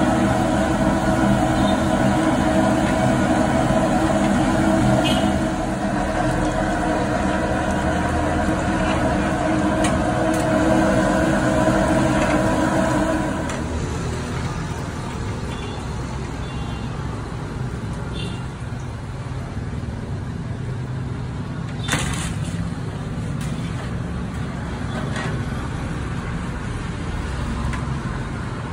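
Street noise with a vehicle engine running nearby, its steady hum cutting out about halfway through, over the sizzle of vadas deep-frying in a kadai of oil. A single sharp clink comes near the two-thirds mark, likely the slotted ladle against the iron kadai.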